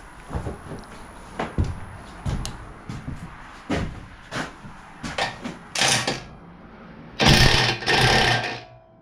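Hand tools working on metal parts of a mini bike during teardown: a string of short clinks and knocks, then two loud, noisy bursts, each about half a second long, starting a little past seven seconds in.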